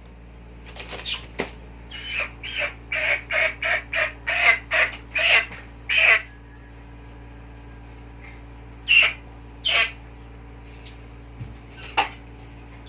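Chicken squawking: a quick run of about ten short calls, two or three a second, then a few single squawks spaced out.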